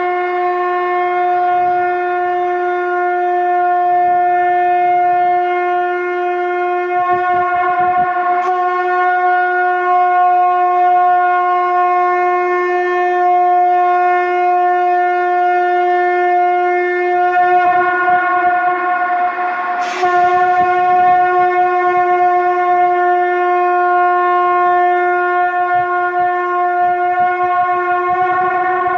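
Shankh, a conch shell blown as a horn, sounding one long held note with a bright stack of overtones. The tone briefly breaks twice, about eight and twenty seconds in.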